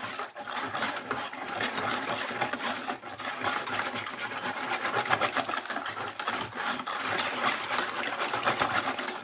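Handheld stick blender running on low in a bucket of soap batter, with small irregular clicks as it is worked through the mix. It is emulsifying the cooking oil and lye solution, which are turning milky on the way to trace.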